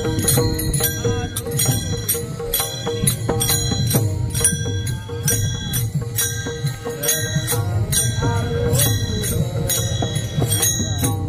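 Marathi devotional bhajan music: small metal hand cymbals struck on a steady beat, about two to three times a second, over a held drone note and chanted singing.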